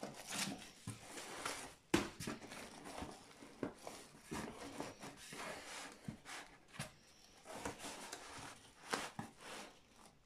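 Aluminium foil and paper wrapping crinkling and rustling as foil-wrapped parcels are handled and pressed into a cardboard box, with a few sharp taps and knocks.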